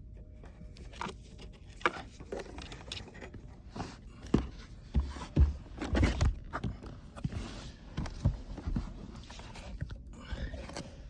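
Handling noise from plugging wiring connectors into a car's center console assembly: irregular plastic clicks, knocks and rustling, heaviest about four to six seconds in.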